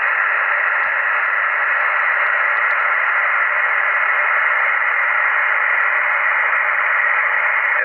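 Steady hiss of band noise from a Yaesu FT-857D transceiver's speaker on 20-metre upper sideband, with no station coming through; only a thin middle band of pitches is heard.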